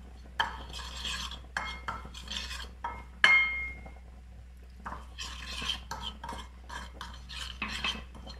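Metal teaspoon stirring and scraping ground spices mixed with a little water against a white ceramic bowl, in quick irregular strokes, with one sharp ringing clink about three seconds in.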